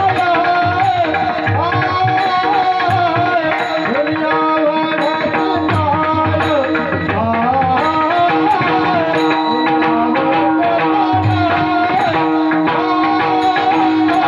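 Indian devotional-style music: a bending melody line over a steady drone, with hand-drum strokes and a crisp strike about once a second.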